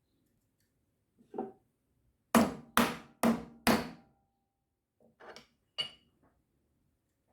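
Four sharp hammer taps about half a second apart, each ringing briefly, with a softer knock just before them and two light ringing ticks a couple of seconds later.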